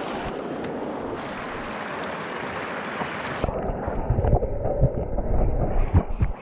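Rushing water of a rocky trout stream, a steady hiss, which about three and a half seconds in turns dull and muffled as it is heard from underwater, with irregular low knocks and gurgles from the water moving against the microphone.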